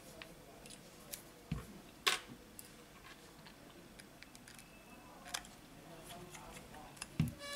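Scattered small clicks and taps of a precision screwdriver and tiny screws against the metal cover plate of a smartphone as the plate is screwed down. There is a sharper click about two seconds in and a dull knock near the end.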